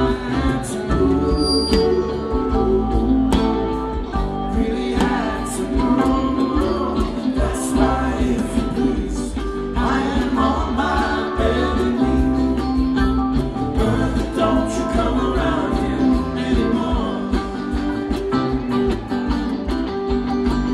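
A live rock band playing through a stadium sound system, with guitars and a singing voice over a steady bass and drums, heard from within the crowd.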